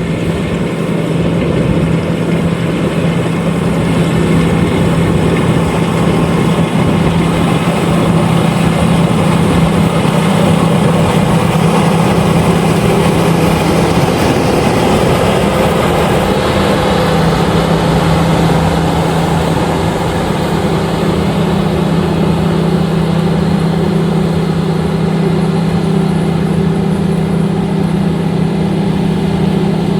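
LOVOL RG130EVO rice combine harvester running steadily while harvesting, its engine and threshing machinery giving a loud, constant hum. The hum weakens briefly about halfway through, then comes back.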